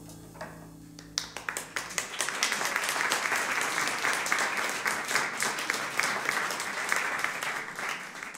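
A jazz quintet's last held chord dies away, and about a second in the audience breaks into applause that builds quickly and carries on.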